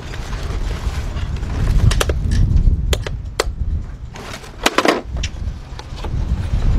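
Plastic trim pry tool levering at the plastic housing of a 2018 Nissan Altima door mirror: sharp plastic clicks, a few single ones and then a quick cluster about five seconds in, as tight snap-in clips are forced. A low rumble runs underneath.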